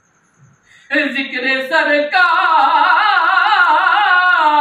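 A man singing an Urdu naat (devotional poem) solo and unaccompanied. He starts about a second in after a brief pause, then sings long held notes with a wavering vibrato.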